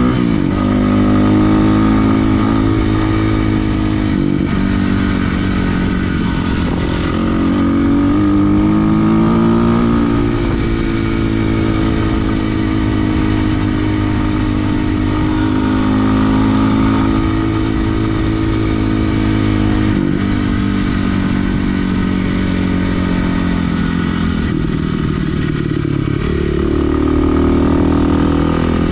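Kawasaki KLX 300R dirt bike's single-cylinder four-stroke engine being ridden, its revs rising and falling every few seconds as the throttle opens and closes.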